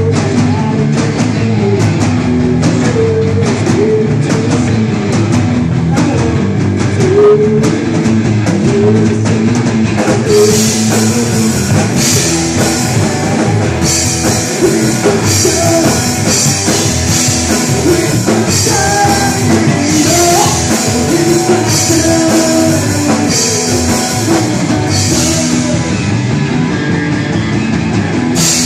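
Live rock band playing loudly: electric bass, guitar and drum kit. The cymbals come in hard about ten seconds in.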